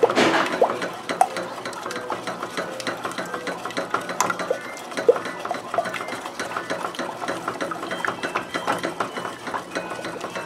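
A wooden spoon stirring fast in a stainless steel pot, beating egg into hot butter and brown sugar syrup: a quick, rapid run of knocks and scrapes against the pot's sides and bottom, with a sharper knock right at the start.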